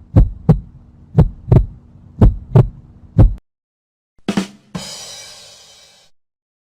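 Heartbeat sound effect: deep double thumps, lub-dub, about one pair a second over a faint low hum, stopping after about three seconds. A short thump and then a crash-like hit follow, its ringing hiss fading over about a second and a half.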